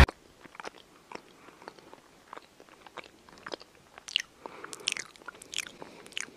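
A cat chewing close to the microphone: soft, irregular crunches and clicks, coming thicker in the second half.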